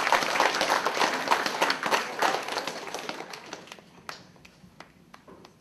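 An audience in a hall applauding, loudest in the first couple of seconds and dying away by about four seconds in, with a few last scattered claps.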